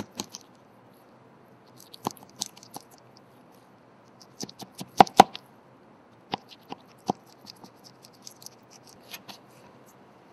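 Boning knife working the loin free from a venison saddle's spine and ribs on a wooden board: irregular clicks, taps and scrapes as the blade meets bone and board, with the two loudest knocks close together about five seconds in.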